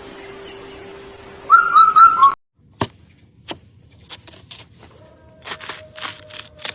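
A quick run of three or four loud, short, high whistled notes about a second and a half in. After a sudden cut come scattered light clicks and taps.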